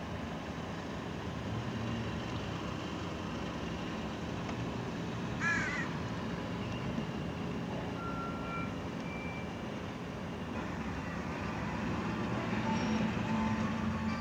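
Steady engine and road noise of a car heard from inside the cabin, creeping along in traffic. About five and a half seconds in, a crow caws once briefly.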